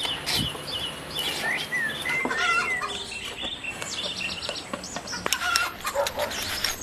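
Birds chirping: many short, quick calls one after another, with a few sharp clicks among them.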